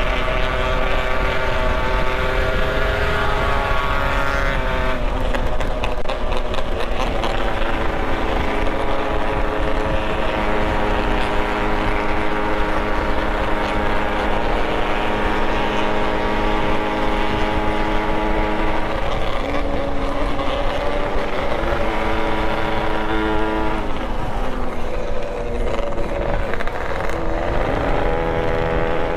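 Motorcycle engine running under way, holding steady speeds for several seconds at a time and shifting pitch a few times as the throttle and gears change, over a steady low rumble of wind and road noise.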